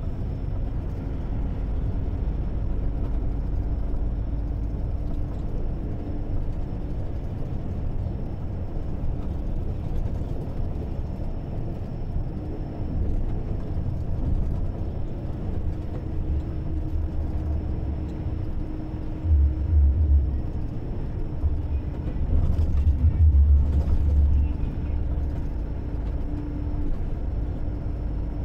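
Road and engine noise of a vehicle driving steadily: a low rumble with a faint steady engine hum. It grows louder and deeper twice about two-thirds of the way through.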